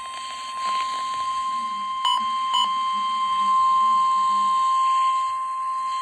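NOAA Weather Radio warning alarm tone, a steady 1050 Hz tone, from the speaker of a Midland WR-100 weather alert radio, sounding as part of the required weekly test. It gets louder under a second in, and two short blips interrupt it a little after two seconds in.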